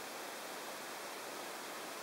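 Steady faint hiss of room tone with a thin, faint high-pitched whine; no distinct event.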